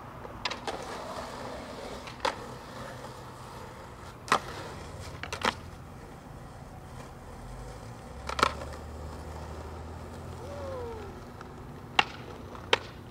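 Skateboard rolling on concrete, with several sharp clacks of the board's tail and trucks popping and landing, spread out over the stretch. A low rumble of the wheels sits under the clacks in the middle.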